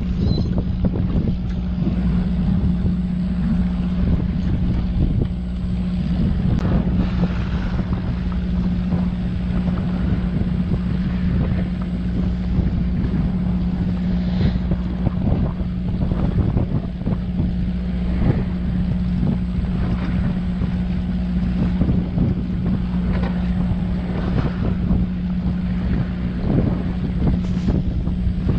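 Fishing boat's engine running with a steady low hum, with wind buffeting the microphone.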